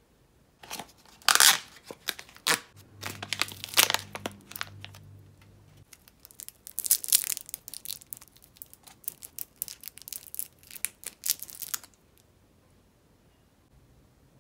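Thin plastic wrappers on imitation crab (kanikama) sticks being torn open and peeled off by hand. The crinkling and crackling is irregular, starts just under a second in and stops about two seconds before the end.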